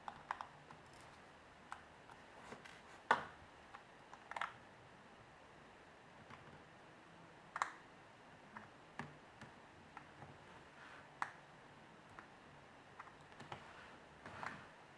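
Faint, irregular clicks and taps of a small screwdriver and metal parts being handled while removing the bottom screws of an iPhone 3G. The loudest click comes about three seconds in.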